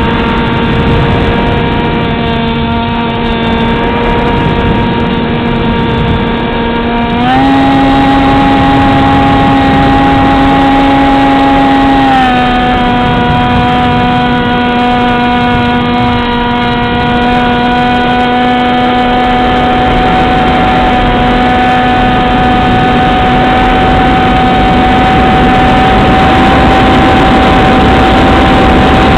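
RC model airplane's motor and propeller droning steadily, picked up by the onboard camera, with a rough rushing noise beneath. The pitch steps up about seven seconds in with more throttle and drops back down around twelve seconds in.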